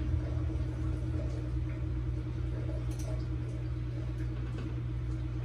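Steady low mechanical hum, with a few faint clicks and taps as the vanity light fixture is handled overhead.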